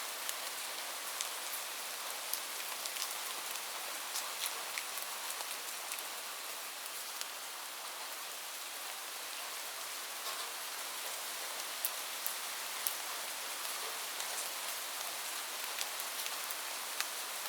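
Steady rain falling on a surface: an even hiss with many scattered, sharper individual drop ticks.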